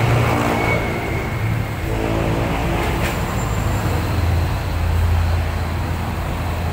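Heavy, slow road traffic passing close by: a container truck's engine rumbling low, with cars and motorcycles going past.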